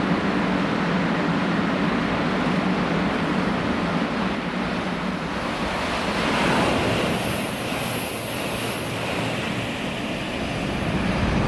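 A 500 series Shinkansen passing through the station at speed without stopping, heard as a rushing noise that builds to a peak about six or seven seconds in, with a brief high hiss, then eases off. A steady low hum runs underneath.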